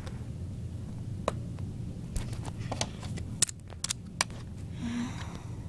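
Small plastic toy figurines handled and set against a plastic playset: scattered sharp clicks and taps, a cluster of them in the middle, over a low steady hum.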